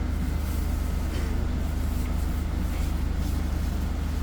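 Steady low rumble and hum of a passenger train.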